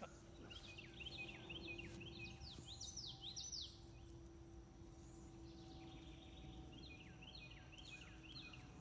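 A songbird singing: two phrases of quick, repeated, high chirping notes, the second starting about halfway through, over a faint steady low hum.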